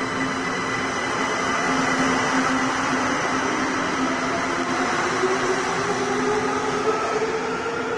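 Kaohsiung MRT Red Line metro train pulling out and gathering speed: a loud, steady run of wheels on rail with a steady hum. From about halfway a whine slowly rises in pitch as the train accelerates.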